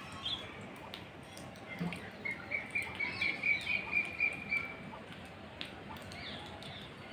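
A bird calling outdoors: a rapid run of short, high chirps, about four a second, lasting a couple of seconds, over a steady background hiss.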